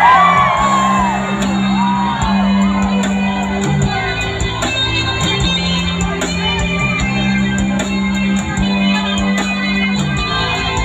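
Live reggae band playing through a PA: electric guitars and a sustained bass line over drums, with a voice shouting over the music in the first couple of seconds.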